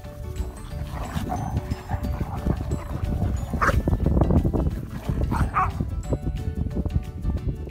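A Belgian Malinois and a Siberian Husky play-fighting, with rough barks and two sharp yips, about three and a half and five and a half seconds in, over background music.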